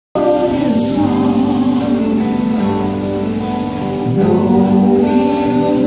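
A woman singing a song, played live with two acoustic guitars.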